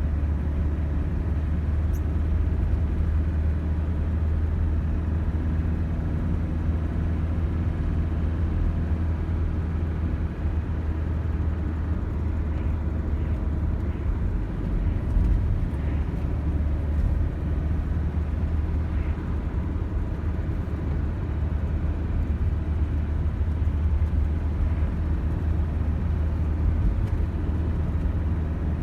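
A car driving: a steady low engine and road rumble with a faint hum, unchanging throughout.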